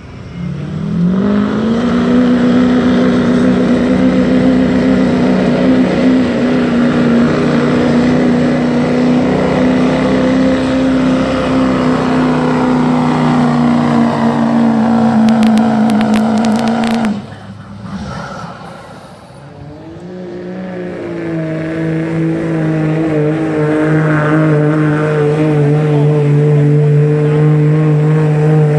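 2008 Ford Super Duty pickup's Power Stroke V8 turbodiesel at full throttle pulling a weight-transfer sled. It builds about a second in, holds a steady high note that falls slightly in pitch, then cuts off abruptly after about 17 seconds. A few seconds later a second diesel pulling truck's engine builds up and holds steady at full throttle.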